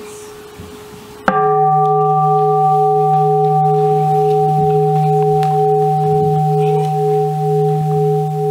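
Buddhist bowl bell struck firmly about a second in, after a faint ringing tone, then ringing on with a long sustain of several tones, one of them pulsing slowly.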